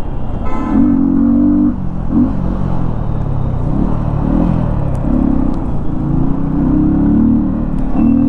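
Yamaha MT-15's 155 cc single-cylinder engine, running with an open air filter, heard while ridden. Its note rises and falls several times as the throttle is opened and eased off, with a loud intake sound from the open filter.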